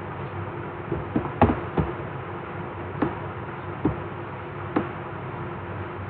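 Computer mouse clicking about seven times at irregular intervals, several in quick succession in the first two seconds, over a steady background hum.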